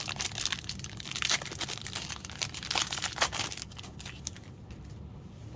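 Trading-card pack wrapper crinkling and crackling in the hands for about four seconds, then dying down.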